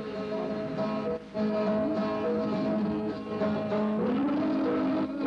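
Soundtrack music with held melody notes that change every second or two, with a brief drop in level about a second in.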